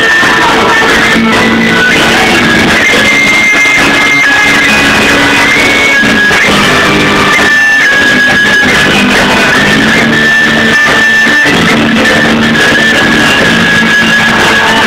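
A rock band playing live and loud: a Stratocaster-style electric guitar carries a lead melody of long held notes that step up and down, over a second guitar and drums.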